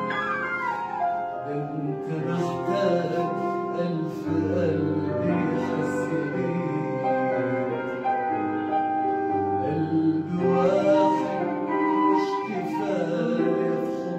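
A man singing into a microphone over instrumental accompaniment, with long held notes and sliding ornaments in the vocal line.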